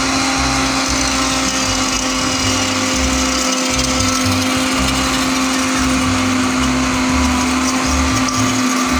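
Electric blender running steadily at one speed, beating cream in its jar.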